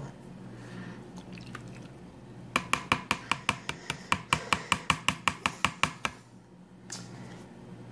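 Yellow plastic bowl and its lid being handled, giving a rapid, even run of plastic clicks, about six or seven a second, for about three and a half seconds.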